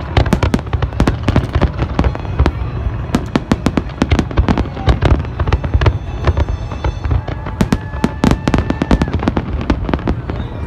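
Large aerial fireworks display: a dense, rapid barrage of bangs and crackling bursts over a constant low rumble of booms.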